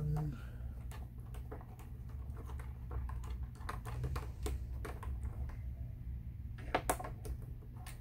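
Irregular small clicks and ticks of a precision screwdriver turning screws out of a plastic computer back cover, and of the loosened screws being picked out by hand. A louder cluster of clicks comes about seven seconds in. A low steady hum runs underneath.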